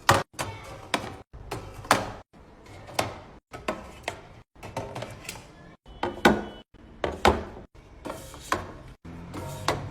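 Knocks and clacks of containers and food items being set down and handled in a fridge, with the odd drawer or shelf sliding. The sounds come in short clips that cut off abruptly to silence about once a second.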